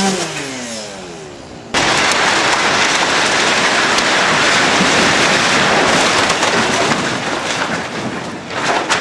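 A vehicle engine pulling on the cable falls in pitch. Then, a little under two seconds in, a sudden loud crash as the theatre roof gives way, and a rush of falling timber and debris that lasts several seconds and fades, with a few sharp knocks near the end.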